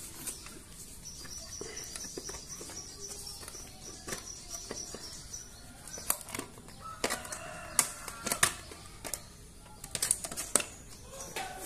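Clicks and knocks of a stainless-steel digital scale indicator housing being handled and its back cover pulled open, with the sharpest metal taps clustered in the second half. A bird chirps rapidly in the background for the first few seconds.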